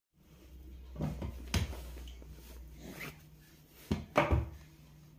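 Small hands knocking and bumping against a wooden cabinet while clothes are pulled out of it: a few scattered knocks, the loudest about four seconds in.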